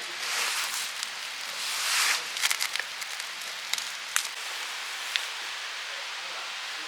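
Campfire crackling over a steady hiss, with a handful of sharp pops about two to five seconds in.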